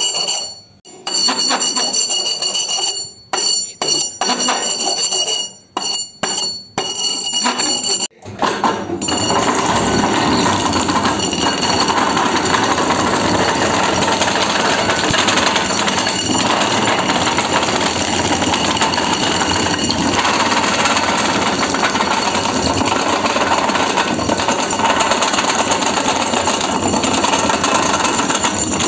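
Tractor-tyre rubber cutting machine chopping rubber strips with a fast, steady mechanical clatter. For about the first eight seconds the sound starts and stops repeatedly, with a whine. After that it runs without a break.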